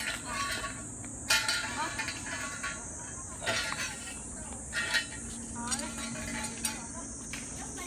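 Metal clinks and knocks as galvanized steel band clamps are handled and slid along a steel chain-link fence rail pipe, with a few sharper clanks that ring briefly, over a steady high hiss.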